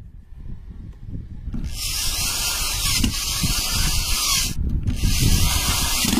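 Cordless drill-driver running, driving screws into an aluminium plate: a loud whirring hiss comes in about a second and a half in and lasts about three seconds. After a brief break it runs again.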